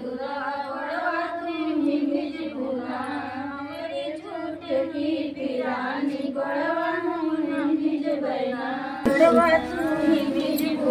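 A woman's voice singing a slow devotional song, a single drawn-out melody with gliding pitch, louder about nine seconds in.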